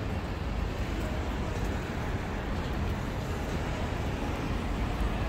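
Steady outdoor background noise with a deep low rumble and no distinct events.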